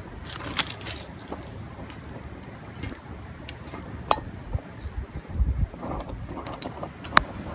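Scattered light metallic clinks and sharp clicks from small camp cookware being handled, with a few low thumps between about four and a half and six seconds in and two louder clicks.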